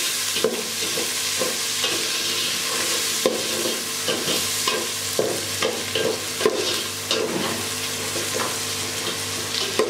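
Sliced onions sizzling in hot oil in an aluminium pot, stirred with a metal slotted spatula that scrapes and clicks irregularly against the pot.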